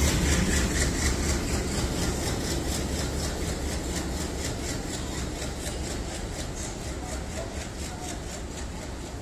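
Diesel locomotive's engine rumbling low as it runs past, fading steadily as it draws away, while passenger coaches roll by with a rapid, regular clicking of wheels on the track.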